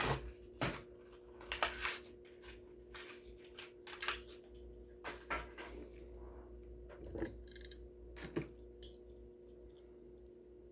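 A die-cast toy car's blister-card packaging being handled and torn open by hand: irregular clicks, crackles and rustles of plastic and card, over a faint steady hum.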